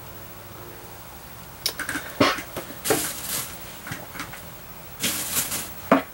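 Paper and crafting tools being handled: a few short scratchy rustles and clicks, starting about two seconds in.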